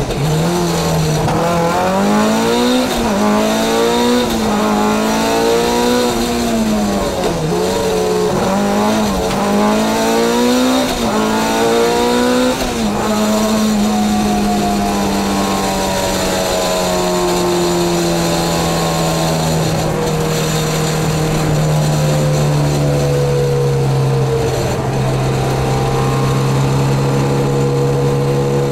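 Competition car engine heard from inside the cabin, pulling in fourth gear. For the first dozen seconds the revs rise and fall again and again; after that they are held steady, sagging slowly.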